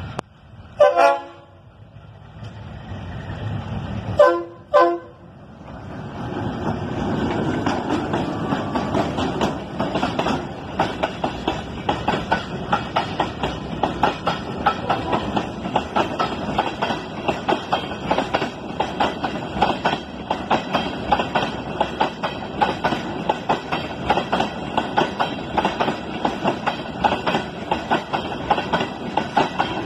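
A diesel locomotive, a DF7G-C, sounds its horn in one blast, then two short blasts a few seconds later as it approaches. A freight train of boxcars and tank wagons then rolls past close by, its wheels clicking in a steady rhythm over the rail joints.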